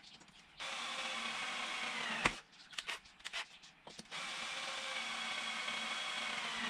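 Cordless drill with a nearly flat battery drilling into a steel motorcycle frame, in two runs of about one and a half and two and a half seconds. The whine drops in pitch as each run ends with a click, and small clicks and knocks fall between them.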